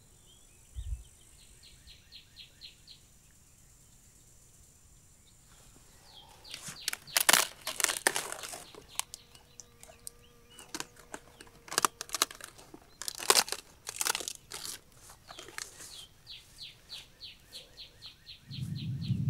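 Irregular rustling and crunching in loud bursts through the middle. A run of quick, evenly spaced high chirps comes near the start and again near the end.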